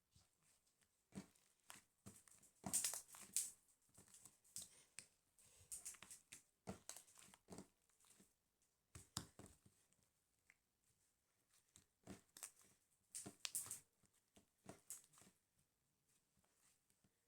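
Quiet, irregular crinkling and tearing of a thin material being handled, in short bursts separated by brief pauses.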